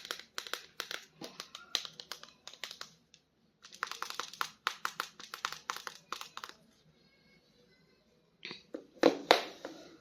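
Plastic toy packaging crinkling and clicking as it is handled, in quick crackles for the first six seconds or so. After a short pause come a few louder handling knocks near the end.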